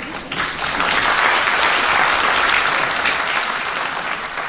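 Audience applauding. It swells about half a second in and tapers off toward the end.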